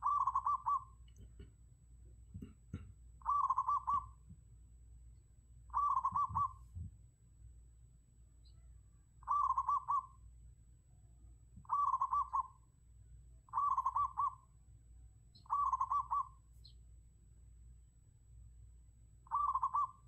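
Zebra dove calling: a short, rapid, stuttering series of coos, repeated eight times at gaps of two to four seconds, over a faint low hum.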